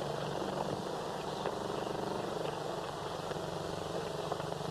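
Horses' hoofbeats as riders set off, a low rapid rhythm under the steady hiss of an old film soundtrack.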